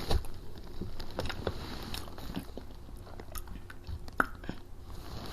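Eating sounds close to the microphone: chewing with scattered small clicks and crackles.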